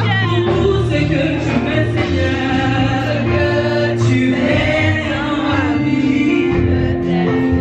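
Gospel music: a group of voices singing over a steady bass line.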